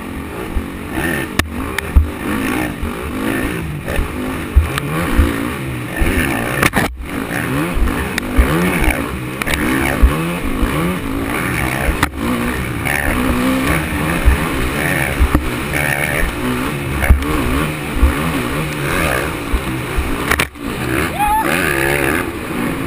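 On-board sound of a motocross dirt bike's engine revving up and down continuously with the throttle on a rough trail, with low thumps and wind rumble over the mic. The sound cuts out for an instant twice.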